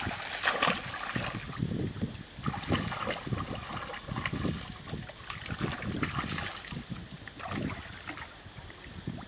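Water splashing and sloshing in an irregular patter as a group of macaques swim, dive and play in a pool.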